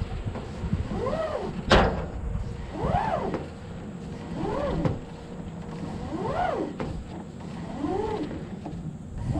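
New hydraulic hose squealing as it is dragged hand over hand through the end of a bucket truck's boom: a rising-then-falling squeak with each pull, about every second and a half. One sharp knock about two seconds in.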